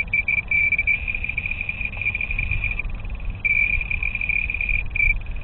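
Laser Atlanta lidar speed gun's targeting tone: one high, steady beep that stutters and breaks off briefly now and then while the gun is held on a car carrying a laser jammer, over a low rumble.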